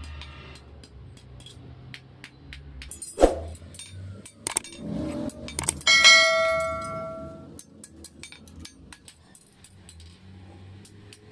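Hammer blows on steel: scattered light taps, two heavy strikes, and about six seconds in a hard blow that leaves the metal ringing like a bell for over a second.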